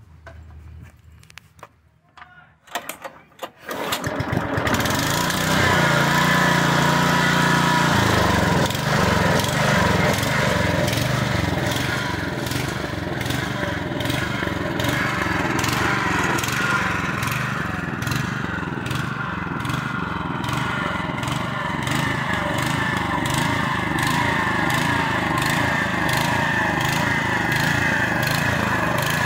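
A walk-behind lawn mower's gasoline engine, cold-started by pull cord once its drained carburetor bowl has refilled with fuel. After a few short pull sounds it catches about four seconds in, runs higher for a few seconds, then settles and runs steadily.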